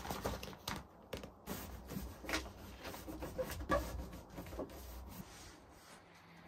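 Irregular taps, knocks and rustles of tacky sound deadener mat being handled and pressed down by hand onto the vehicle's sheet metal, without a roller. It dies down about five seconds in.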